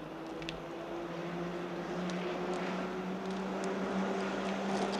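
A steady engine drone that grows gradually louder, its pitch rising a little about a second in.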